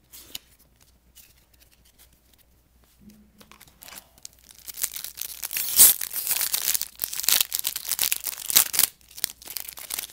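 Handling of trading cards, then from about four and a half seconds in the foil wrapper of a trading card pack being torn open and crinkled, in a dense run of crackling rustles.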